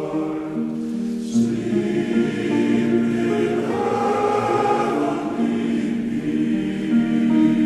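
Choir singing a carol in sustained, held chords.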